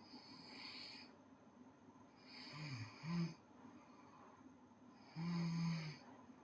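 A girl snoring: a faint breath near the start, a short snore falling in pitch about two and a half seconds in, then a longer snore on a steady pitch, the loudest, about five seconds in.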